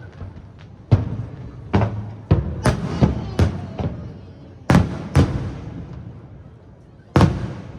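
Aerial firework shells bursting overhead: about nine sharp booms, each followed by a rolling rumble that dies away. The booms come in a quick run in the first half, then two more, and a last one near the end.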